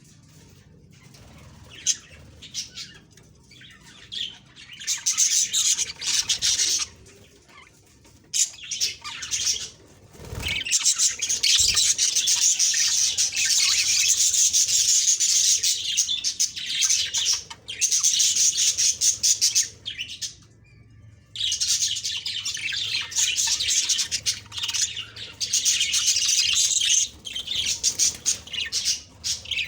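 Budgerigars chattering and warbling: fast, high chirping in long runs broken by short pauses. A brief low thump comes about ten seconds in.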